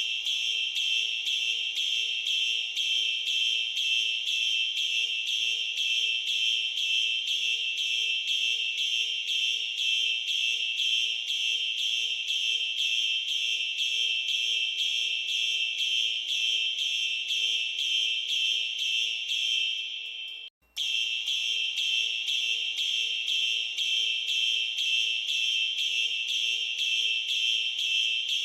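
Fire alarm sounding in a march-time pattern: a high tone pulsing on and off in a rapid, even rhythm. It breaks off briefly about twenty seconds in, then resumes.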